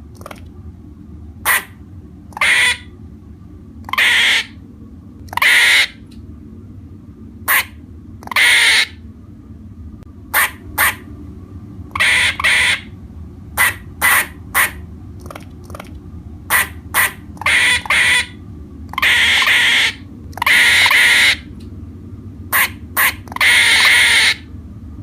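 Squirrel calling over and over at irregular intervals: short sharp chirps mixed with longer drawn-out calls of up to about a second, the longest ones near the end.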